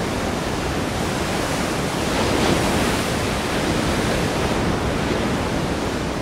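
Ocean surf: a steady rush of waves breaking and washing, swelling a little about two and a half seconds in.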